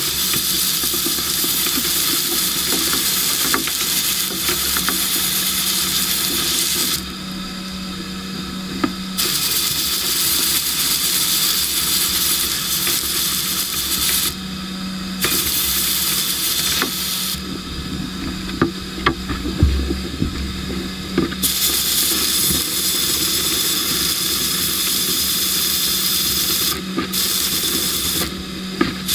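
Blast gun in a sandblasting cabinet spraying abrasive at a small brass clock winder: a loud, even hiss that runs in long bursts and stops for a second or more several times, the longest pause a few seconds past the middle. A steady hum sounds through the pauses.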